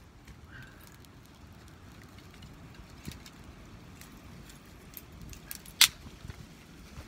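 Small campfire of dry kindling sticks burning, crackling with scattered snaps and one sharp, loud pop about six seconds in.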